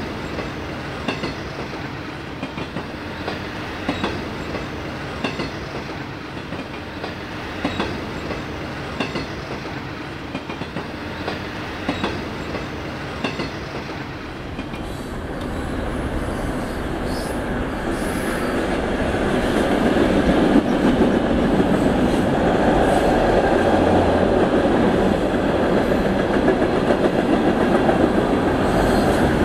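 Model railroad cars rolling on HO-scale track: wheels click over rail joints about once a second over a steady hum. About halfway through, a louder, denser rolling rumble builds as a string of model hopper cars passes close by.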